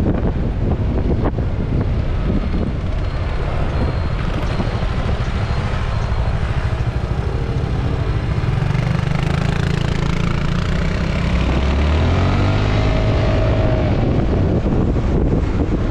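Wind rushing over the microphone of a riding scooter, easing as it slows at a junction, where a low scooter engine note comes through. Near the end the engine pitch rises as the scooter pulls away and speeds up, and the wind builds again.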